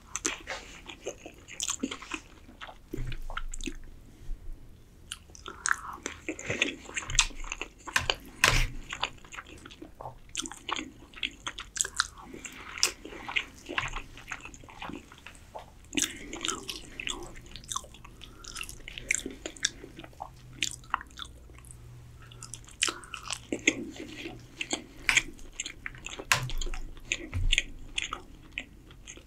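A man chewing and biting a mouthful of spiced yellow rice and chicken, with many short, sharp mouth clicks and wet smacks.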